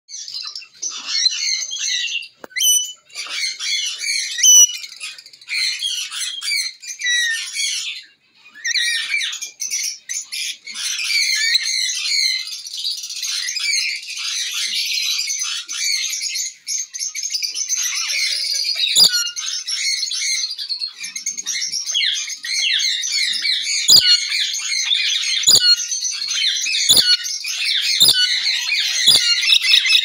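Rainbow lorikeets chattering: a dense, fast stream of high chirps and squeaky calls, with a short break about eight seconds in. Several sharp taps cut through in the second half.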